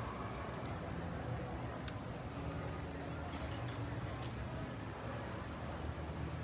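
Outdoor city ambience: a steady low hum of distant traffic, with a couple of faint light clicks.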